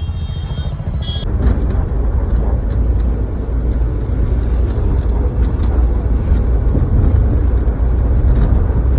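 Steady low rumble of a moving road vehicle, engine and road noise, growing a little louder about a second in.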